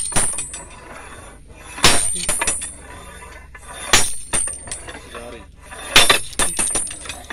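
Standard penetration test drive hammer, a heavy steel weight raised on a rope and dropped by hand onto the anvil on the drill rods: three blows about two seconds apart, each a sharp metallic clank with a short ring and a little rattle after it, driving the sampler into the ground.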